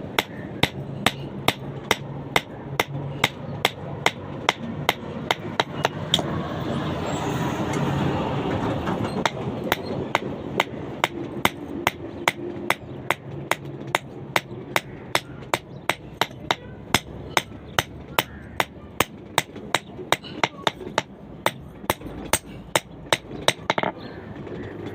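Blacksmith's hand hammer striking steel on an anvil in a steady rhythm of about two ringing blows a second, as in drawing a rebar rod out to a point.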